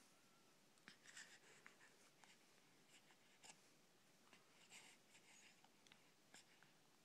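Near silence, with a few faint, brief scratchy rustles.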